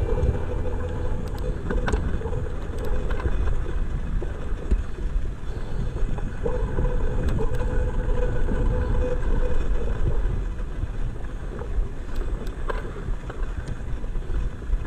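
Mountain bike rolling fast down a rocky dirt trail, heard from the bike: a steady rumble of wind on the camera's microphone and tyres on dirt, broken by scattered clicks and rattles as the bike goes over stones.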